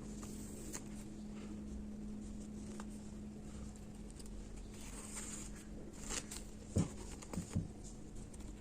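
Fabric and a zipper being handled close to the microphone: soft rustling and small clicks, with three soft knocks just before the end, over a steady low hum.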